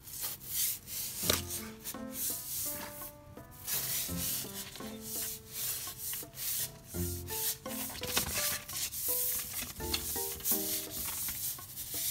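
Scratchy rubbing and rustling of cloth, in many short strokes, over background music with a simple stepped melody.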